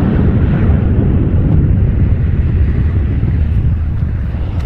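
Jet engines of an Airbus A320-family airliner at takeoff power on its takeoff roll: a loud, deep, steady rumble that eases off in the last second or two as the plane moves away down the runway.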